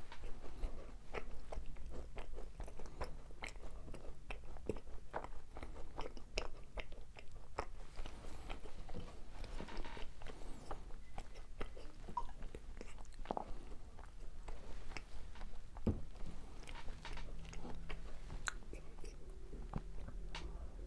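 Close-miked eating of macarons: crisp shells crunching under the bite and chewing, a dense, irregular run of small crackles and clicks.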